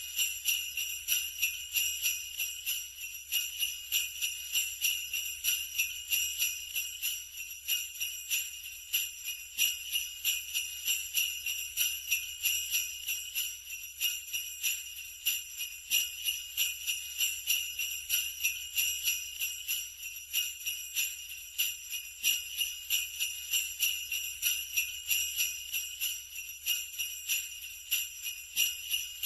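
Sleigh bells shaken in a steady rhythm, about two to three shakes a second, jingling brightly without a break.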